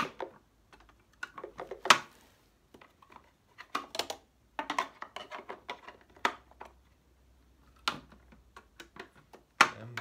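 Hard plastic clicks, snaps and rattles from the covers of a Philips XD3110 bagged vacuum cleaner being handled, as the dust-compartment lid is worked and the rear filter cover is opened. The clicks are irregular, with sharp snaps at the start, about two seconds in and near the end.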